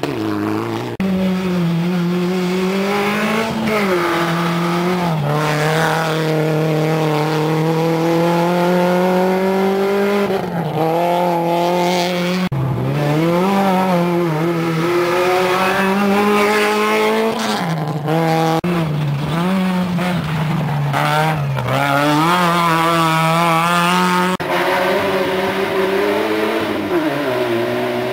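Rally car engines running at speed on a gravel stage, the pitch climbing and dropping again and again through gear changes. The sound breaks off and starts anew a few times as different cars come by.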